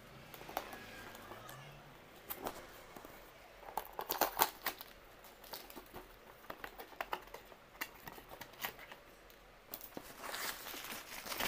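Cardboard shipping box being opened by hand: tape and flaps pulled and scraped, with scattered sharp cardboard clicks and knocks, a cluster of them about four seconds in. Near the end, a denser stretch of crinkling and tearing.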